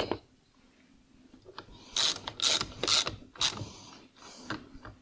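Ratchet wrench clicking through a run of short strokes, about two a second, tightening a fastener, with a few fainter clicks near the end.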